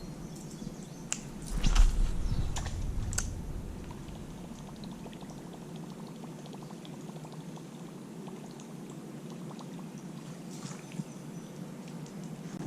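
Water splashing and dripping, with a few light clicks in the first few seconds.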